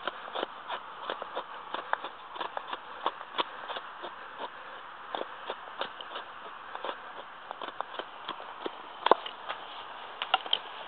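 Prandi Yankee small axe shaving curls down a wooden stick to make a feather stick: an uneven run of short cuts and knocks of steel on wood, a few a second, with a sharper knock about nine seconds in.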